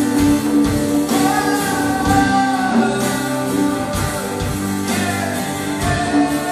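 Live band playing a song: strummed acoustic guitars, electric guitar and bass over a drum kit with a steady beat, and a voice singing.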